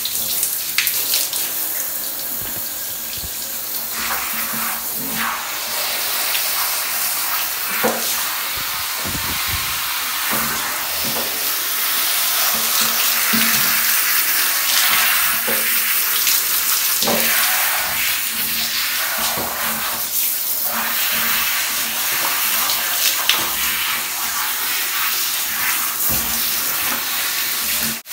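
Water spraying from a handheld shower head, running steadily onto a dog's wet coat and into a bathtub as the dog is rinsed, with a few short knocks and splashes.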